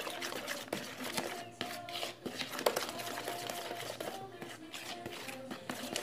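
Spoon scraping and clicking against a plastic mixing bowl as flour and eggs are stirred into a batter, over faint background music.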